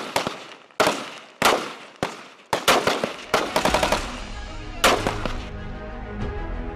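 Rifle gunfire: single shots roughly every half second, then two quick strings of rapid fire about three seconds in and one more shot near five seconds. A low music bed comes in underneath about four seconds in.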